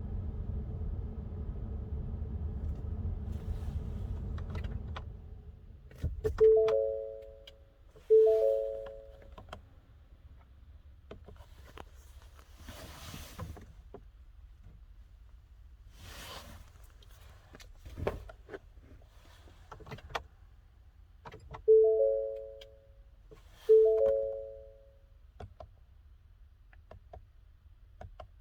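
Ford Expedition's warning chime sounding twice, pause, and twice again, each chime one bell-like tone that dies away over about a second. Before it, a steady low drone stops about six seconds in, and a few clicks and thunks follow.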